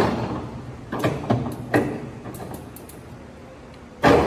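Engine lathe headstock gear levers being shifted by hand with a few clunks and clicks while the spindle stands still, then a heavy clunk near the end as the spindle drive engages and the geared headstock starts running with a steady hum.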